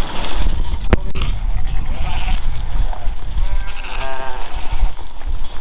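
A flock of Scottish Blackface sheep bleating as it is driven around a pen: two clear bleats, about two and four seconds in. Under them is a steady low rumble, with one sharp click about a second in.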